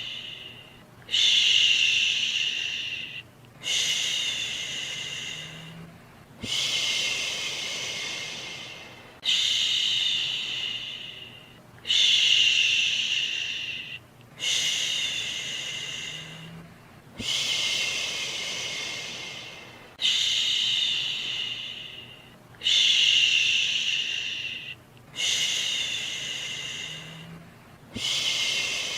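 A repeated soothing 'shhh' shushing sound for calming a baby to sleep: eleven long shushes, about one every two and a half seconds, each starting strong and fading away.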